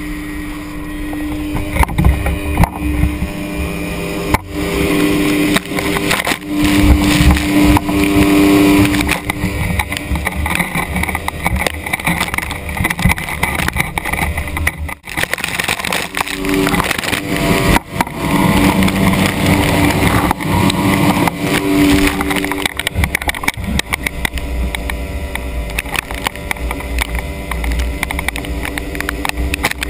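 Outboard motor running hard, pushing a flat-bottom tunnel-hull boat, with its pitch wavering, over a constant rush of water spray and splashing at the hull. The sound drops out briefly about halfway through.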